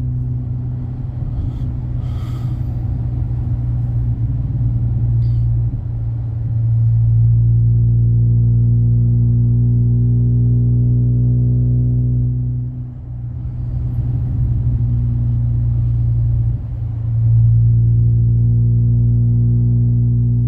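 Car engine and MagnaFlow Magnapack exhaust droning steadily while driving, a low, even engine note that dips briefly about 13 and 17 seconds in.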